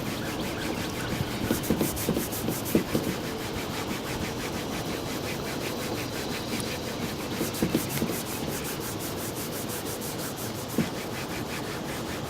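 Cloth rubbing back and forth over a faded, grainy-textured plastic car bumper in quick repeated strokes, with a few brief louder knocks.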